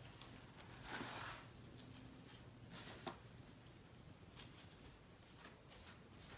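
Faint rubbing and swishing of a cloth wiped over a stained wooden newel post in a few strokes, with a short click about three seconds in.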